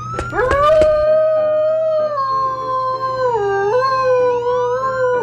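Dog howling: one long drawn-out howl that sags in pitch about three and a half seconds in, rises again, and breaks off near the end.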